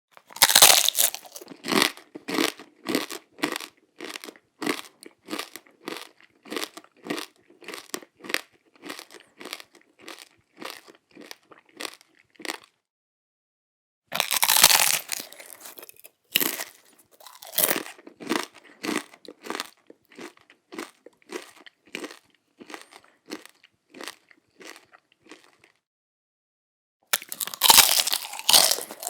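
A person bites into a crunchy waffle three times, each loud crunch followed by a run of crisp chewing crunches about two a second that grow fainter as the bite is chewed down. The chewing stops briefly before each new bite.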